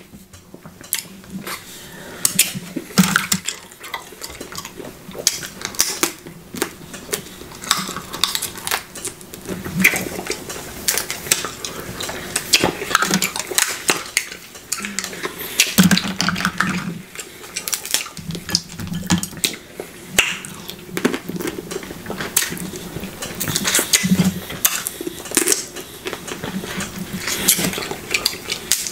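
Close-miked eating of crab legs: shells cracking and snapping in the hands, with sucking and chewing at the mouth, a steady irregular run of sharp clicks and crunches.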